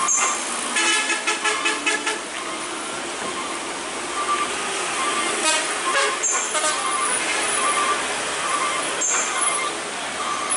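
Heavy trucks running in low gear through a wet hairpin climb, over a steady wash of rain and tyre noise. A vehicle horn sounds for about a second near the start, and short tones and toots recur through the rest.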